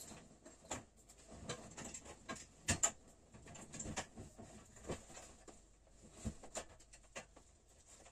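Irregular light knocks, clicks and rustling as stored gear is moved about by hand, with a sharp double knock about three seconds in.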